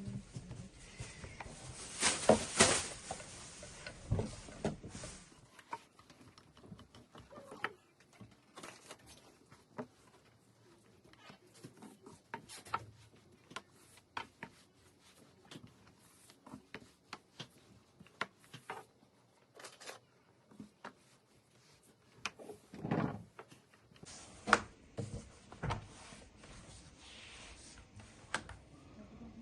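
Scattered light clicks and taps of hand work at a kitchen counter while preparing baklava, with louder bursts of handling clatter a couple of seconds in and again about three-quarters of the way through.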